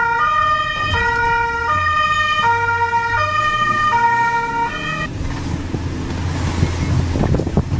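Emergency vehicle's two-tone siren, switching between a low and a high note about every three quarters of a second, cutting off about five seconds in. After that, the low rumble of the car driving, heard from inside the cabin.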